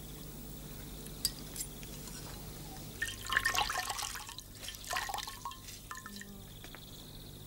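A wet cloth wrung out by hand over a basin: two faint clicks, then water splashes and drips back into the bowl in two bursts, about three and five seconds in.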